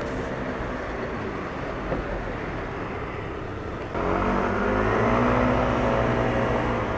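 Road traffic: a steady hum of passing cars, louder from about four seconds in, where an engine's hum stands out.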